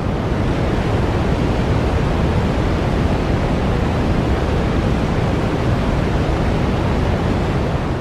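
Steady, deep rushing hiss of radio static with no variation, standing for the cosmic microwave background, the Big Bang's leftover radiation, as heard through a radio antenna's receiver.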